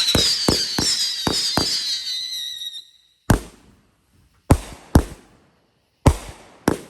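Fireworks going off: a shrill, wavering whistle with several fast cracks for nearly three seconds, then five separate sharp bangs spaced about half a second to a second apart.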